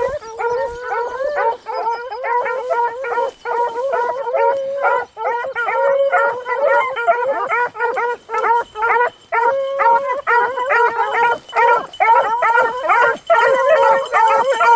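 A pack of beagles baying as they run a rabbit. Many hound voices overlap in an almost continuous chorus, broken by short gaps.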